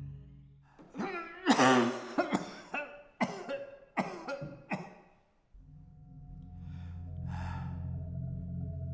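A person's coughing fit: a string of harsh coughs over about four seconds, the second one long and strained. Then a low, steady music drone comes in.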